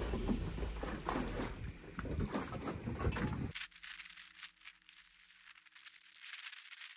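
Knocks from handling, then faint, irregular scraping and crunching of a steel trowel working mortar against brick.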